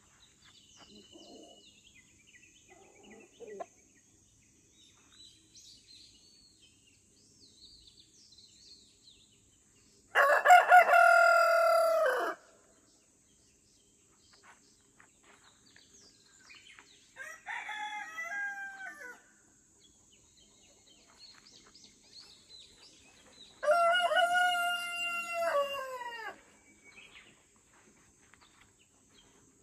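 Rooster crowing three times, about ten seconds in, again more faintly around seventeen seconds, and once more near twenty-four seconds. Each crow is drawn out for about two seconds and falls in pitch at the end. Faint small-bird chirps come in the first few seconds.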